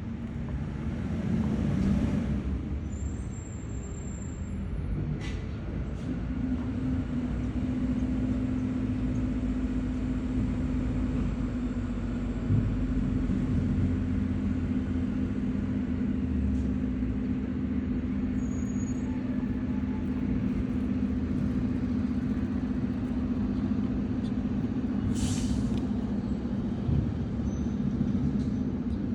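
A motor vehicle's engine running steadily nearby as a low, even hum, with a brief sharp hiss like an air brake release about 25 seconds in.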